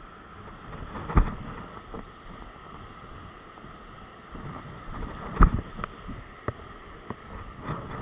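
Steady wind noise on the microphone with a few sharp thumps, the loudest about five seconds in: footsteps on a rocky coastal path.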